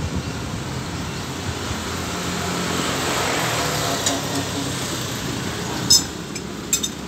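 Street traffic passing, a steady rushing noise that swells around the middle and eases off, with a few short sharp clicks near the end.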